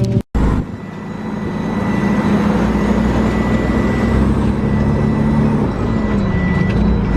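Combine harvester running steadily in the field, a continuous engine and machinery drone with a thin high whine over it. The sound cuts out briefly right at the start, then comes back and grows louder over the next couple of seconds.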